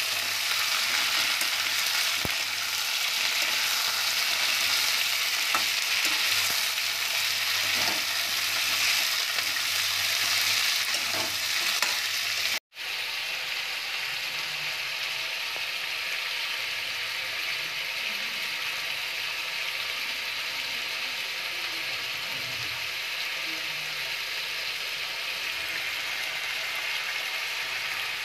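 Flat beans (sem) and potatoes sizzling in oil in a metal kadhai, stirred with a spatula that scrapes now and then. After a sudden cut about twelve seconds in, a softer steady sizzle continues.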